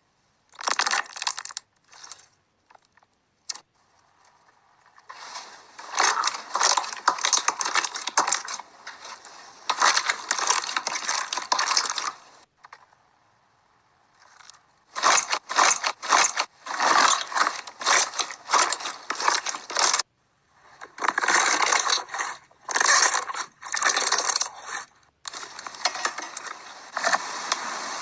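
Slime being squeezed, poked and stretched by hand, with dense crackling and popping. The sound comes in several spells of a few seconds each, separated by short, sudden silences.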